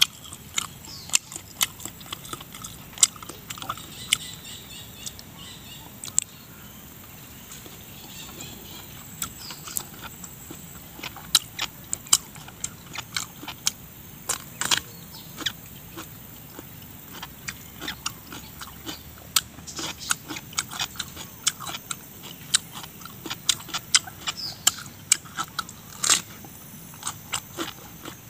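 Close-up eating: crisp bites into a raw cucumber and crunchy chewing, many sharp crunches at an uneven pace.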